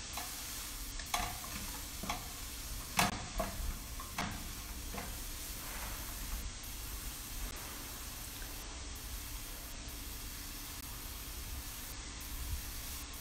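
Chopped mushrooms, onions, garlic and herbs sizzling in a stainless steel frying pan over a gas flame. Several sharp scrapes and taps of a plastic slotted spatula against the pan come in the first five seconds, then the sizzle carries on steadily.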